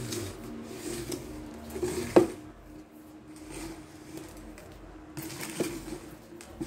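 Handling noise from a phone held close to its microphone: a few knocks and rubs, the sharpest about two seconds in and a smaller one near the end, over a faint steady hum.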